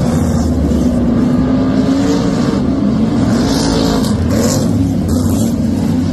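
Several BriSCA F1 stock cars' V8 engines racing past close by, their overlapping engine notes rising and falling as the cars go by.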